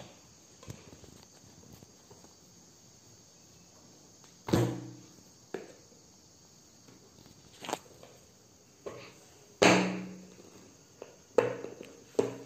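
A cardboard phone box being cut open with a knife blade at its taped edge and handled, with several sharp knocks and thumps against the box. The loudest come about four and a half and nearly ten seconds in.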